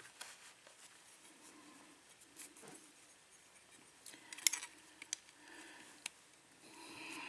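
Faint, scattered small metallic clicks and taps as the pins and parts of a taken-apart pin tumbler lock are handled, with a quick cluster of clicks about four and a half seconds in. A faint steady hum comes up near the end.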